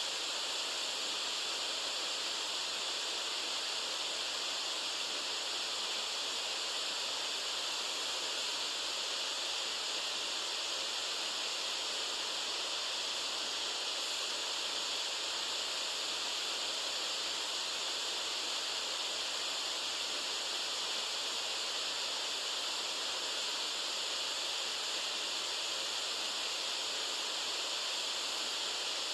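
Steady white noise for sleep: an even, unchanging hiss, strongest in the upper register and thin in the bass.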